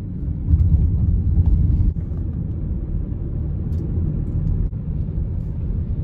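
Steady low rumble of a car being driven, heard from inside the cabin: road and engine noise, a little louder for a stretch near the start.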